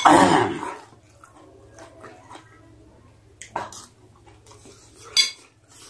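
Close-up eating sounds: a loud burst of mouth noise at the start, then quiet chewing, with sharp clinks of a metal spoon on a ceramic plate about three and a half and five seconds in.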